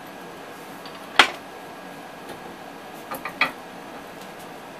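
Hard knock about a second in, then a quick run of three clicks and knocks around three seconds in: the metal spindle of a 6040 CNC router being handled and seated into its spindle clamp.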